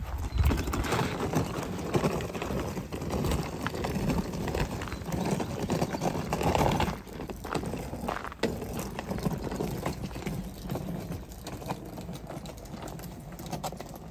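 Wheels of a hard-shell rolling suitcase clattering along a stone path in an uneven run of knocks, louder at first and softer after about seven seconds.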